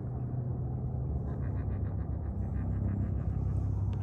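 Steady low rumble of an idling engine, with a short run of quick light ticks, about six a second, in the middle.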